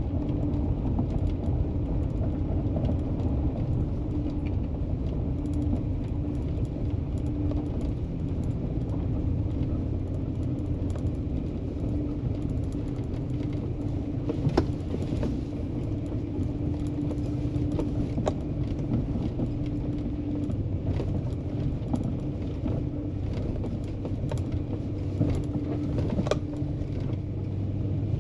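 A vehicle engine running steadily as it drives slowly along a rough, muddy dirt road, with a few sharp knocks and rattles from the bumps. The loudest knock comes about halfway through.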